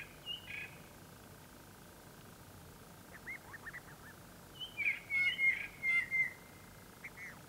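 Wild birds calling: short high chirps, a quick run of small notes about three seconds in, then a louder bout of repeated calls from about four and a half to six and a half seconds in, and a couple more near the end.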